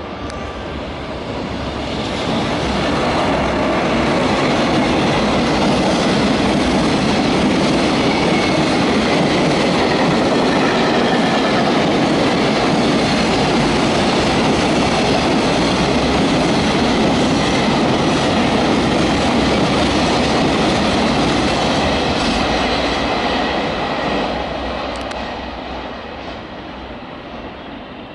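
Freight train of container wagons hauled by an EF210 electric locomotive passing at speed, its wheels running over the rails in a steady loud rumble. The sound builds over the first few seconds and fades after about 24 seconds as the last wagons pull away.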